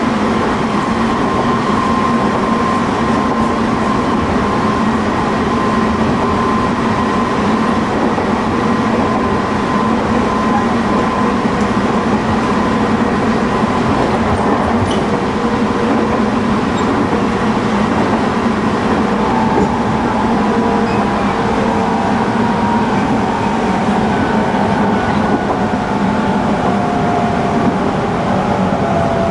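Tobu 20050 series electric multiple unit running, heard from inside a motor car: a steady rumble of wheels on track with the faint tones of the GTO-VVVF inverter and traction motors. In the last third the tones slowly fall in pitch.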